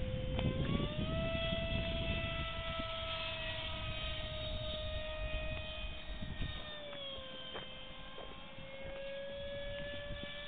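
Electric motor and propeller of a radio-controlled model airplane whining steadily as it flies overhead; the pitch rises about a second in and drops back about seven seconds in. A low rumbling noise runs underneath, heavier in the first half.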